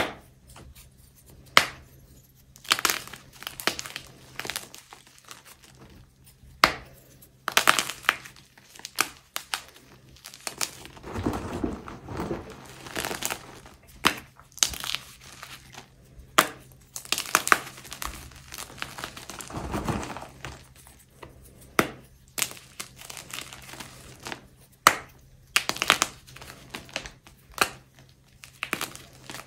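Dyed gym chalk blocks being crushed and crumbled, giving irregular sharp crunches and crackles, with a few duller, deeper crunches now and then.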